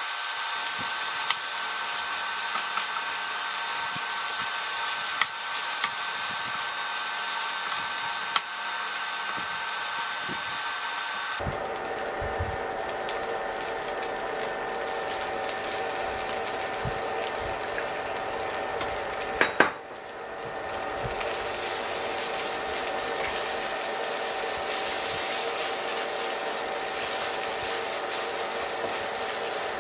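Fried rice sizzling in a nonstick frying pan while a wooden spoon stirs and scrapes it, over a steady whir from the induction cooktop. The steady whir changes abruptly about a third of the way in, and there is one sharp knock of spoon on pan a little past halfway.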